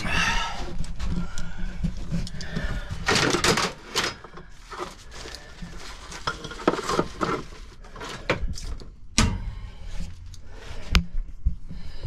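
Rummaging through a work van's shelves and plastic parts bins: scattered knocks, clicks and rattles of fittings and tools being moved about, with a steady low hum underneath.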